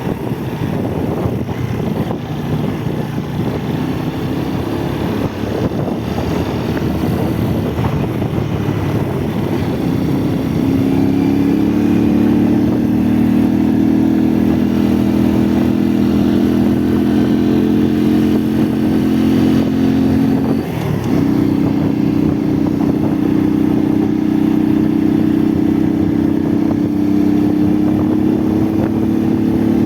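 Motorcycle engine running while riding. About ten seconds in, the rough rumble gives way to a strong, steady engine note, which dips briefly about two-thirds through and then carries on.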